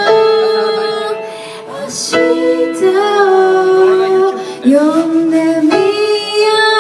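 A song: a voice singing a melody in long held notes over light instrumental accompaniment.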